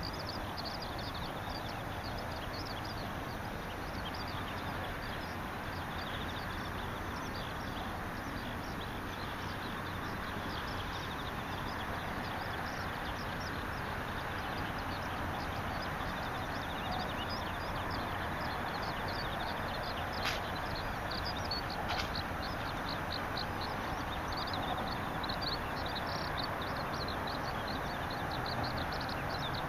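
Birds and insects calling together: a dense run of quick, high chirps over a steady hiss, with two sharp clicks a little past the middle.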